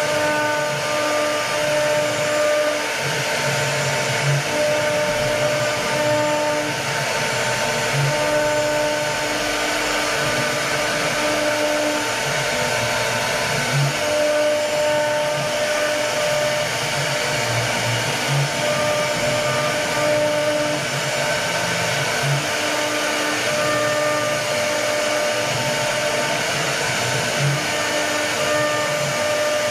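CNC router cutting a wooden door panel: the spindle runs with a steady whine and rush that never stops. Its tone keeps dropping out and coming back every second or two, with short low rumbles, as the cutter works along the design.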